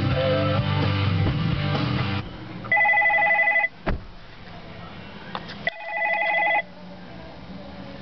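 Guitar music playing on the car stereo cuts off about two seconds in, and an incoming call rings on the Parrot hands-free car kit: a warbling electronic ringtone, about a second long, heard twice, three seconds apart.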